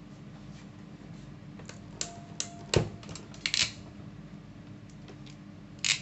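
Hand crimping pliers closing on an insulated ring terminal on a wire: a few sharp mechanical clicks between about two and three and a half seconds in, the loudest near the three-second mark, then one more click near the end.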